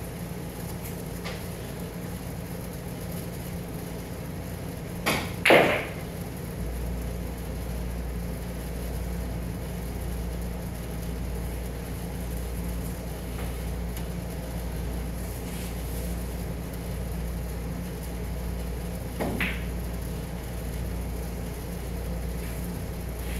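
Two sharp knocks close together about five seconds in and a softer knock near the end, over steady hiss and low hum; a deeper hum comes on just after the first knocks.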